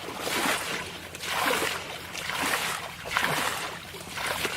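Water splashing in a steady rhythm, about one splash a second.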